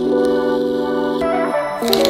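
Background music: soft ambient keyboard chords held and changing every second or so.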